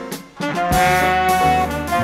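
Small jazz group playing: baritone saxophones and trumpet sounding a horn line over piano, bass and drums. The horns drop out briefly about a third of a second in, then come back with a long held note.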